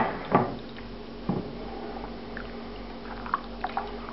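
A spoon working thick reduced veal stock through a fine-mesh metal chinois into a pot: three sharp knocks of metal on metal in the first second and a half, then lighter clicks and wet squishing of the liquid. A steady low hum runs underneath.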